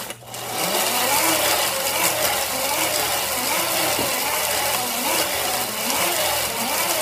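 Hand-crank blender whirring as its crank is turned, the gears and blade grinding dried pear skins into powder. It starts about half a second in and runs steadily, wavering in a regular rhythm with each turn of the crank.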